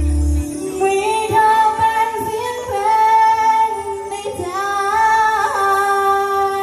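Live Thai dance-band music: the bass and beat drop out about half a second in, leaving a woman singing long held notes.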